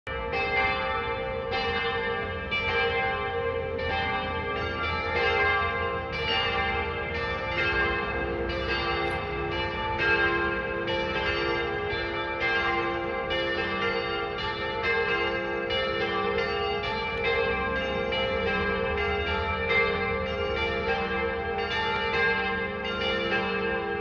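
Church bells ringing, several bells struck in quick, overlapping succession, their tones ringing on and blending together.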